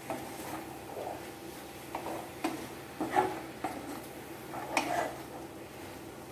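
A spoon stirring in a cooking pan of mushroom masala with added water, clinking and scraping against the pan in irregular knocks, the loudest about two and a half, three and five seconds in. A faint steady low hum lies underneath.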